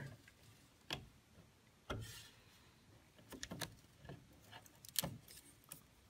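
Faint scattered clicks and taps of a plastic 24-pin ATX power connector and its sleeved cable being handled and pushed into the motherboard's power socket, the sharpest about two seconds and five seconds in.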